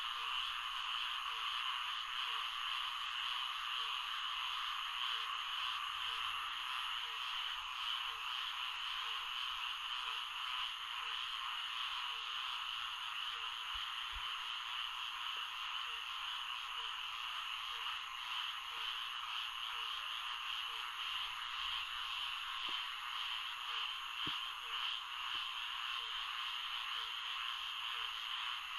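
Florida swamp ambience: a dense, steady chorus of frogs, with one short call near the bottom repeated steadily, more than once a second.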